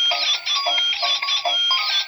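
Music: a quick, repeating pattern of high notes.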